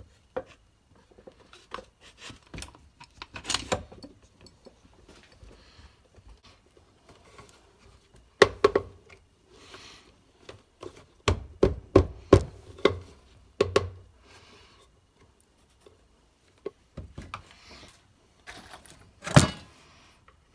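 Knocks and taps of wooden boards and bar clamps being handled on a workbench, with a run of sharp knocks in the middle. Near the end comes a single loud hammer blow on wood, driving a nail.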